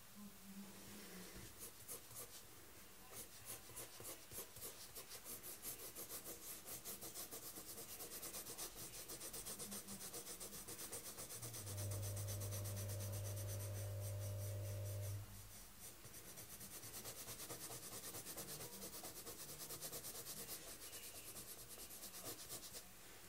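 Colored pencil scratching on sketchbook paper in quick, rhythmic back-and-forth shading strokes. About halfway through, a low steady hum starts and cuts off abruptly after about three seconds.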